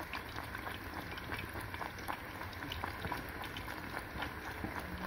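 Hot frying oil crackling and sizzling in the pan: a steady hiss dotted with irregular small pops and crackles.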